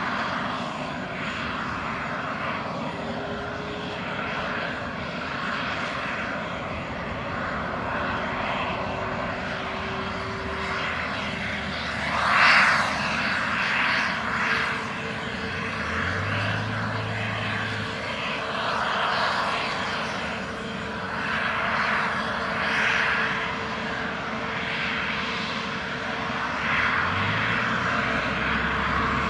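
Airbus A320neo's CFM LEAP-1A turbofan engines running at idle: a steady rushing whine that swells and fades, with a brief louder rush about 12 seconds in and a steady tone that joins about halfway through.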